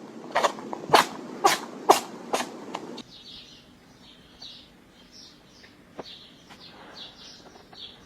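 An animal's short, sharp calls, about two a second for three seconds, followed by faint, quick, high-pitched chirping.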